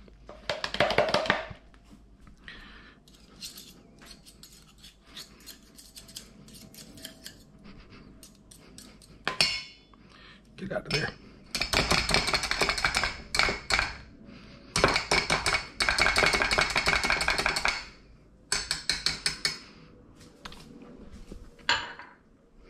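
Wire whisk beating a thick, mayonnaise-based blue cheese dressing in a stainless steel bowl: rapid scraping clicks of the wires against the metal. It comes in runs of a few seconds, the longest and loudest in the second half.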